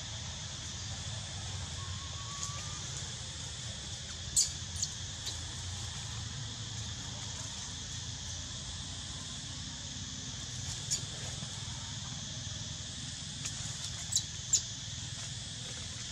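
Steady insect drone, broken by a few short, sharp high-pitched chirps in small clusters about four, eleven and fourteen seconds in.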